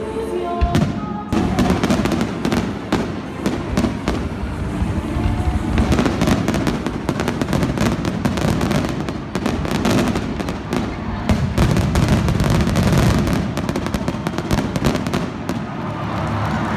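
Fireworks display: a rapid, continuous run of bangs and crackling bursts, getting denser from about six seconds in. Music plays over the stadium speakers underneath.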